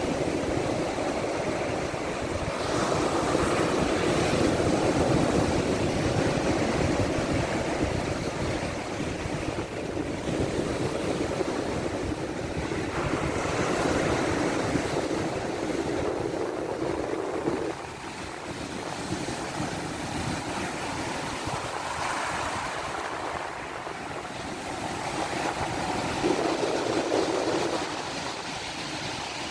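Black Sea waves washing ashore in swells that rise and fall every few seconds, with wind rumbling on the microphone.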